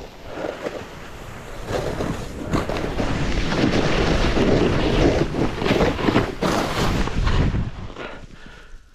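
Snowboard base and edges scraping and sliding through chopped-up, tracked snow, mixed with wind rushing over the microphone. The noise builds about two seconds in, is loudest in the middle, and dies down near the end.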